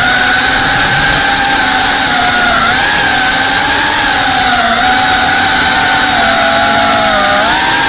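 FPV quadcopter's motors and propellers whining steadily, heard from its onboard action camera, the pitch wavering up and down a little as the throttle changes.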